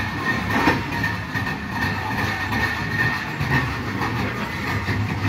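Railway passenger coach rolling slowly over workshop rails: steady rumble of the wheels with a high, steady squeal over it.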